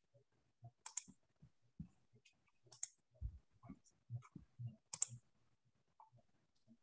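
Faint, irregular small clicks and soft low knocks, with a few brief hisses, picked up quietly through an open video-call microphone.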